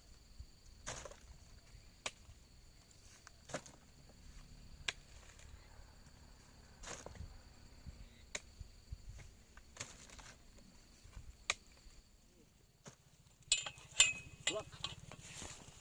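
Insects trilling steadily on two high pitches, with scattered sharp clicks and knocks. The trilling stops near the end, where a louder cluster of knocks comes.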